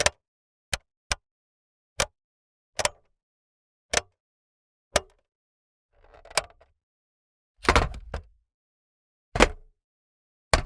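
A series of separate button clicks, like an alarm clock's snooze and control buttons being pressed, about one a second. A few are heavier hits with a dull thud, around the middle and again later.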